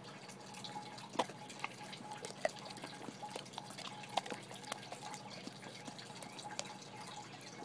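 A boxer dog licking frozen yogurt off a metal spoon: a string of small, irregular wet tongue clicks and smacks.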